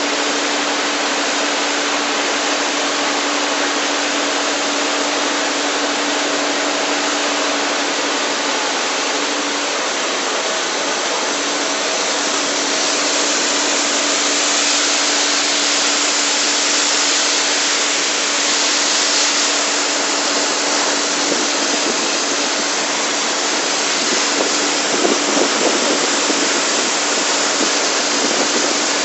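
Powerful jet of water from a raised nozzle plunging into a pool: a loud, steady rushing splash. A steady machine hum runs underneath and drops out briefly about ten seconds in.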